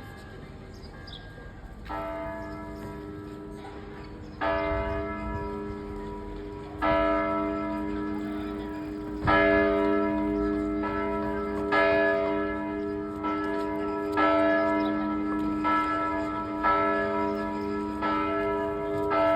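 A church bell starting to ring: after about two seconds of quiet background, strokes come slowly at first, then faster, about one every second and a quarter. Each stroke rings on into the next, so the hum builds into a continuous peal.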